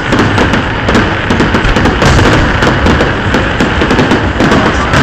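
Fireworks display: aerial shells bursting in a loud, dense barrage of bangs and crackling with no pause between them.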